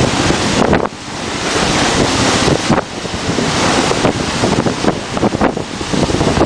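Rushing water and spray along the hull of a 12 Metre class sailing yacht driving hard through rough sea, mixed with heavy wind buffeting on the microphone. The rush eases briefly about a second in and again near three seconds in, then builds back up.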